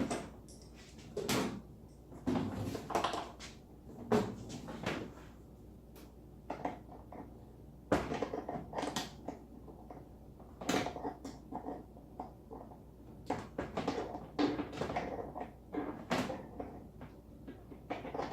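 Threaded water-line fittings being tightened together with pliers: irregular clicks, creaks and clatter of the tool and fittings being gripped and turned.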